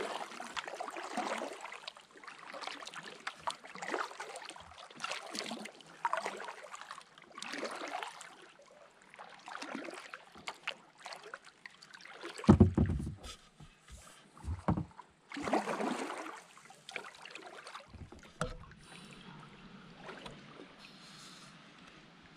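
Kayak paddle strokes dipping and swishing through calm river water about once a second, with a sharp loud knock about twelve seconds in and a smaller one a couple of seconds later. The strokes die away over the last few seconds.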